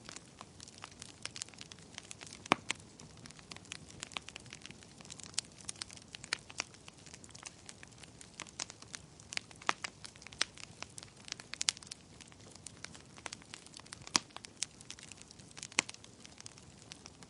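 Bonfire burning with irregular crackling and sharp pops of burning wood over a low hiss, with a few louder snaps now and then.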